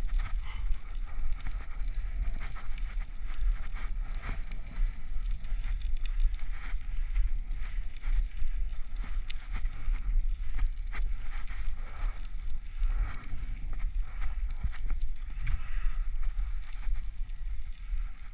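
Riding a bicycle on a wet, cracked road: wind rumbling on the helmet-mounted action camera's microphone over steady tyre noise, with scattered clicks and rattles from the bike as it goes over the rough pavement.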